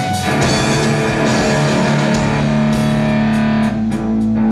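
Live rock band playing an instrumental passage: distorted electric guitar chords held over bass and drum kit, with no singing.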